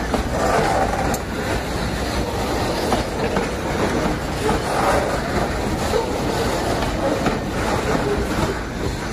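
Freight train of covered goods wagons passing close by: a steady rumble of steel wheels on the rails with irregular clanking and clatter from the wagons.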